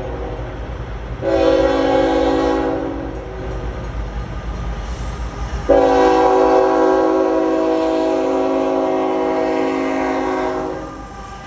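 Norfolk Southern freight locomotive's air horn blowing for a grade crossing: a short blast about a second in, then a long blast that stops near the end, the closing short-and-long of the crossing signal. Under it runs the low rumble of the approaching train.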